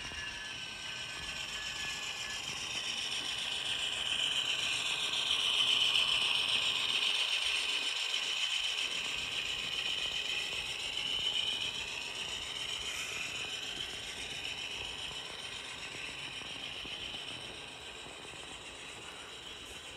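HO-scale model train running past: a steady mechanical rattle of the locomotive's drive and the cars' metal wheels on the rails, growing louder as the locomotive passes closest about six seconds in, then fading as the coal hoppers roll by.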